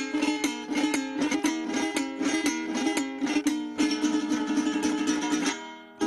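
Venezuelan cuatro strummed in a fast, steady rhythm of chords. Shortly before the end the strumming stops and the last chord rings on, fading, with a few softer notes.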